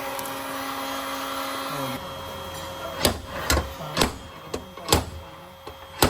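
A power tool runs steadily, then winds down and stops about two seconds in. Six sharp hammer blows follow, spaced about half a second to a second apart, as in panel beating on car bodywork.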